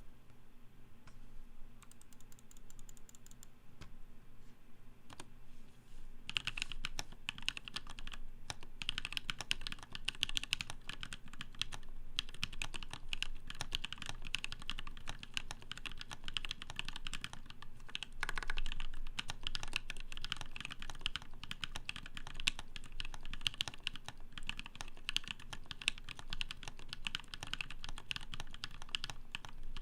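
Typing on a CannonKeys Malicious Ergo mechanical keyboard with Kailh Cream Dream switches lubed with Krytox 205g0 on an FR4 plate. A few scattered keystrokes for the first six seconds or so, then fast, continuous typing.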